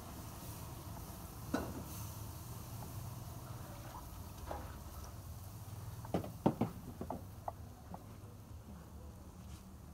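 A wooden spoon knocking and scraping against a black cooking pot as steaming caramelised sugar is stirred: scattered sharp knocks, clustered a little after the midpoint, over a steady low rumble.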